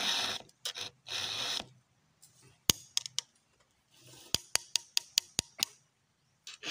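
Hand file rasping across the cutters of a Stihl chainsaw chain in two long strokes near the start. After a pause there are a few sharp clicks, then a quick run of sharp clicks, about five a second, over faint rasping.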